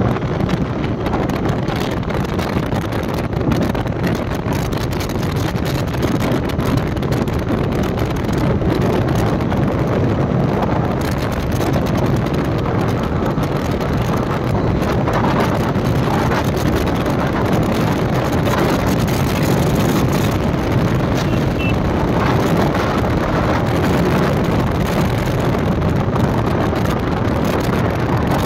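TVS Apache RTR 160 4V motorcycle's single-cylinder engine running at highway speed, mixed with steady wind rush on the microphone.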